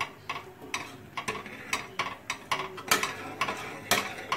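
A metal ladle stirring milk in a metal cooking pot, clinking and scraping against the pot's sides and bottom about two to three times a second.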